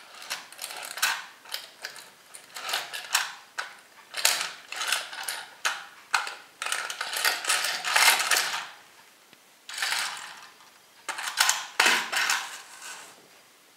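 Plastic toy semi-truck creaking and cracking under the sole of a high-heeled boot: a run of irregular crackles and clicks, loudest in the middle and again near the end.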